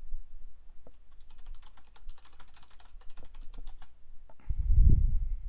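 Typing on a computer keyboard: a quick run of key clicks, followed near the end by a brief, loud low thump.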